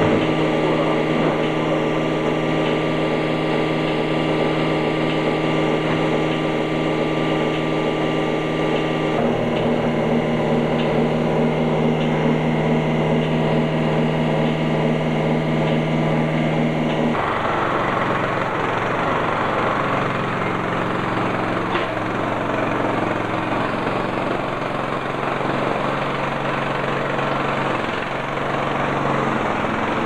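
WIC straw bedding chopper starting up and running steadily. Part way through, its sound turns rougher and noisier while it shreds the bale and blows straw into the stalls.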